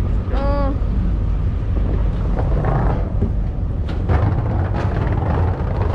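Steady low rumble of a boat's engine with wind noise, and a brief high pitched cry about half a second in.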